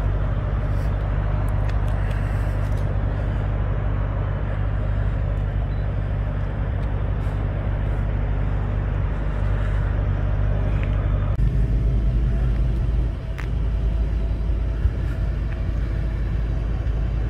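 Car engine idling, a steady low rumble; the sound changes abruptly about eleven seconds in.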